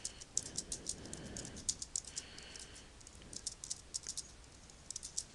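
Fast typing on a computer keyboard: quick runs of key clicks broken by short pauses.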